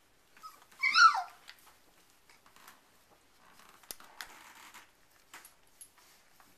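Four-week-old Airedale terrier puppy giving one short, high-pitched squeal that rises and falls about a second in. Afterwards faint rustling and scattered small clicks as the puppies move about.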